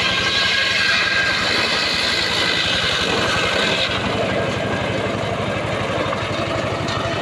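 Engine running steadily with an even low pulse; a higher rasping noise over it drops away about halfway through.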